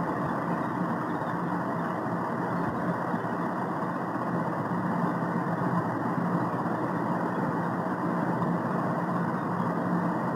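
Steady, unchanging machine hum with a faint low tone in it.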